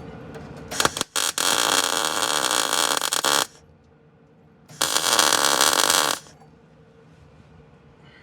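MIG welder arc crackling during plug welding of a car body panel, in two bursts: a stuttering start then about two and a half seconds of steady welding, a pause, then a shorter burst of about a second and a half. The welder finds it is welding poorly.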